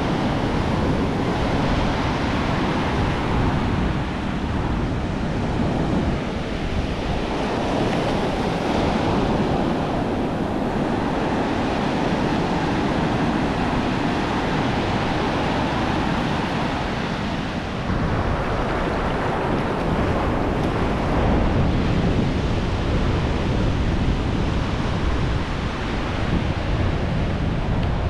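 Ocean surf breaking and washing up the sand, a steady rush of water, with wind buffeting the microphone.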